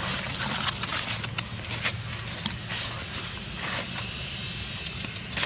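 Light crunching and rustling of dry fallen leaves under a baby monkey's feet, many short crackles over a steady low hum.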